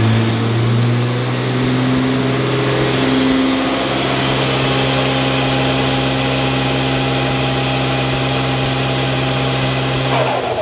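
Nissan R35 GT-R's twin-turbo VR38DETT V6, fitted with downpipes and a titanium exhaust, running loud under load on a chassis dyno during tuning. The engine note rises slightly over the first few seconds and then holds steady at constant revs.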